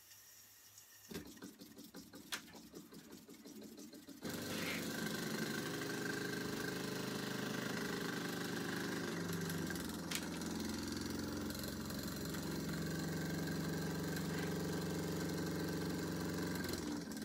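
A few light clicks and taps as the engine's flywheel and belt are handled, then about four seconds in a small Mamod live-steam model engine starts running steadily, its flywheel driving a belt to model line-shaft pulleys.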